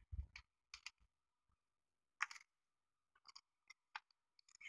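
Light plastic clicks and taps from an N gauge model train car and its parts being handled by hand: a soft knock at the start, a sharper click a little over two seconds in, then several faint clicks.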